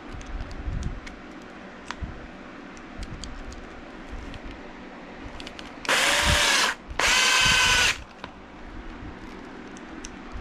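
Warrior 18V cordless drill/driver driving a screw through a brass hinge into plywood in two bursts of about a second each, the first spinning up, with a short pause between. Light clicks from handling the screws and hinge come before and after.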